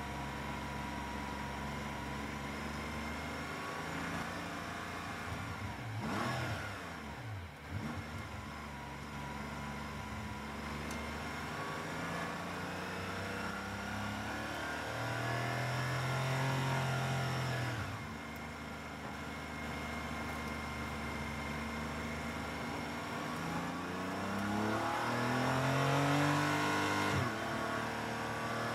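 Porsche 718 Cayman GT4 Clubsport's flat-six heard from inside the cockpit, running steadily at low revs in first gear, then accelerating with rising revs and a sudden drop at an upshift near the end.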